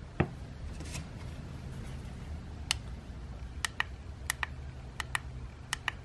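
Buttons of a handheld fixed-code copy remote clicking as they are pressed and released during programming: one click, then four quick double clicks spaced less than a second apart. A single knock just after the start is the loudest sound, over a low steady hum.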